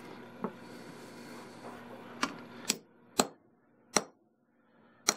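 Hammer lightly tapping a steel punch into an aluminium wire-rope ferrule to crimp it: a faint tap about half a second in, then five sharp metallic taps from about two seconds in, unevenly spaced.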